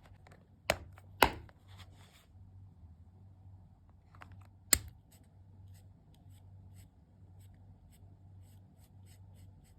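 Colouring tools being handled: three sharp clicks or taps, the loudest about a second in and another near the five-second mark, with fainter ticks between them, over a steady low hum.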